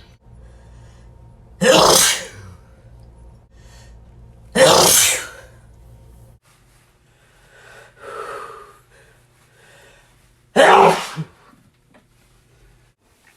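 A person sneezing three times, each a sudden loud burst. The third comes after a longer pause, with a softer breathy sound between the second and third.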